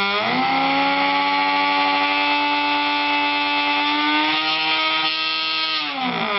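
Electric pump motor whining. Its pitch rises sharply about a quarter second in, holds steady at the higher speed, then winds down near the end. The motor is being run up briefly to push up the output voltage while it drives a fridge compressor load.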